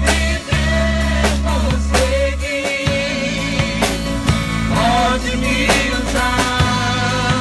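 Christian worship music: an instrumental passage with a drum kit and sustained bass notes under a wavering melody line.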